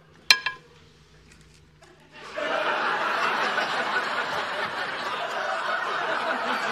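A single sharp clink of a metal utensil against a dish just after the start. About two seconds in, a studio audience breaks into sustained laughter that carries on to the end.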